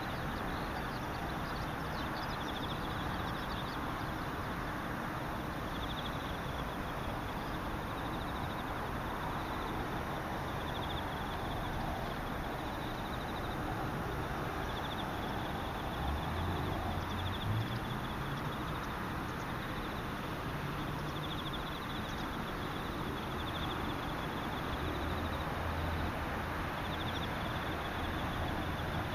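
Insects trilling in repeated rapid pulsing phrases, high-pitched, over a steady outdoor hiss. A low hum, such as a distant engine, comes in about halfway through and again near the end.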